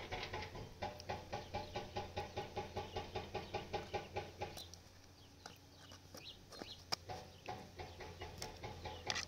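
A chicken clucking in a fast, even run, about four clucks a second, for the first half. Then sharp clicks of a metal spoon against a cooking pot, with fainter clucking again near the end.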